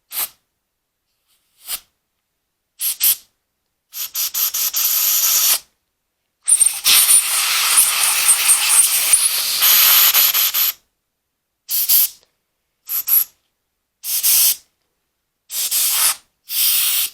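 Compressed-air blowgun hissing in about ten bursts through a carburetor's fuel passages to clear and check them: short blasts, with two longer ones of about one and a half and four seconds in the middle.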